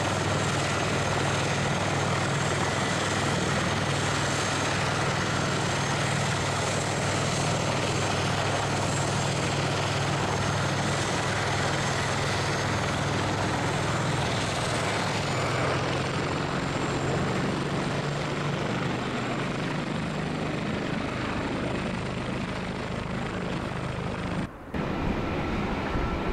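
Boeing 737 twin jet engines at takeoff power: a steady roar with a low hum and a thin high whine, easing slightly as the jet climbs away, then breaking off abruptly near the end.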